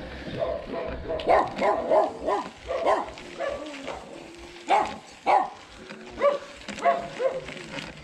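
Dogs barking, a string of short barks that rise and fall in pitch.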